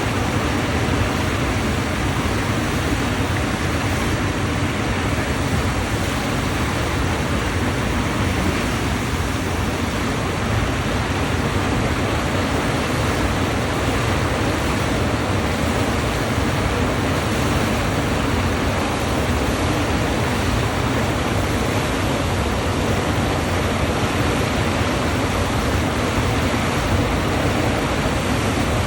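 Steady rushing of water from a FlowRider sheet-wave machine, pumped in a thin, fast sheet up the padded ride surface.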